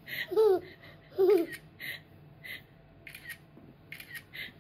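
A toddler giving two short, wavering laughing squeals, followed by several short clicks.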